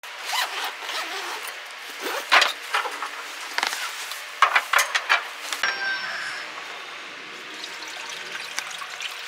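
Irregular knocks and clicks, the loudest about two and a half seconds in and again around five seconds, then a steady hiss with a brief high chirp at about six seconds.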